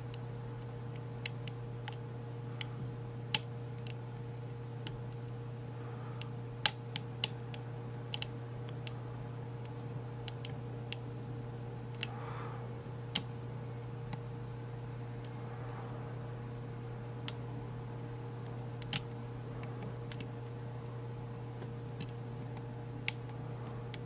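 Small, irregular metallic clicks and ticks of a dimple pick working the pins of an Evva DPI dimple cylinder lock under tension, with one sharper click about seven seconds in. A steady low electrical hum runs underneath.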